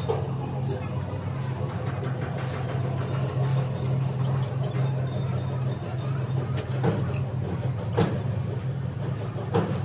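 Steady low hum of running workshop machinery. Short high chirps come and go over it, and a few light knocks sound near the end.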